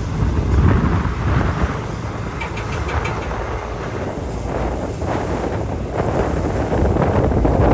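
Wind buffeting the phone's microphone on the deck of a car ferry at sea, in gusts, over the steady low rumble of the ship underway.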